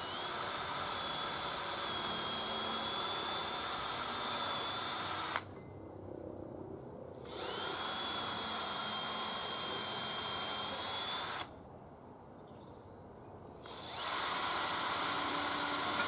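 Cordless drill boring holes straight through a wooden disc, in three runs of a few seconds each with short pauses between. Each time it starts, the motor whine rises briefly and then holds steady.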